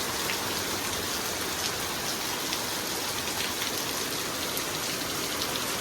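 Heavy rain from a squall-line thunderstorm, falling steadily, with scattered drop ticks through it.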